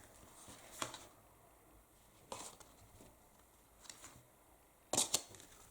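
Cards of an oracle deck being leafed through by hand: faint slides and soft ticks of card on card, with a louder cluster of flicks near the end.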